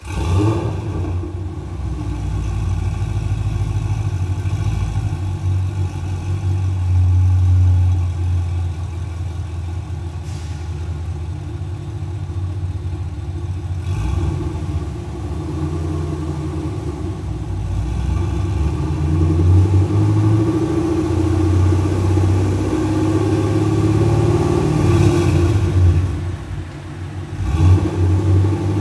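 Chevrolet Camaro SS 6.2-litre V8 running through BBK VariTune adjustable axle-back mufflers, a deep, continuous exhaust note. It grows louder over the last third, dips briefly near the end, then comes back up.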